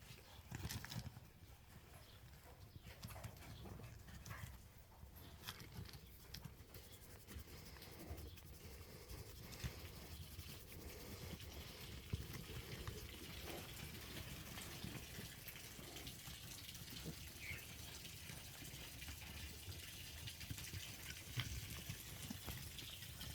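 Faint sounds of a sow and piglets moving about in a shed, a low irregular rumble with small scattered clicks and wet noises.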